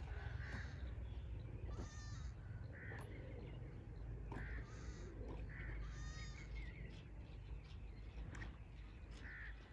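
Crows cawing again and again, short harsh calls scattered through, over a steady low rumble.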